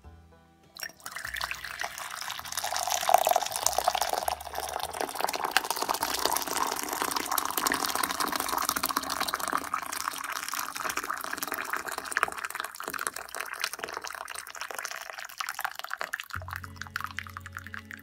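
Hot water poured in a steady stream into a ceramic cup, splashing and bubbling as the cup fills. The pour starts about a second in; background music comes in near the end.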